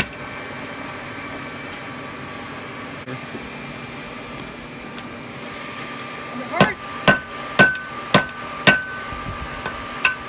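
Hand hammer blows on hot steel on an anvil: one strike at the start, then after a pause about five blows roughly half a second apart, each leaving a short ringing tone, followed by a few lighter taps. A steady hum runs underneath.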